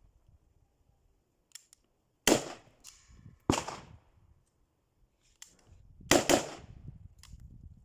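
Semi-automatic single shots from a 7.62×39 mm AKM rifle: two shots about a second apart, then after a pause of a couple of seconds a quick pair, each shot ringing out briefly. Fainter sharp clicks fall between the shots.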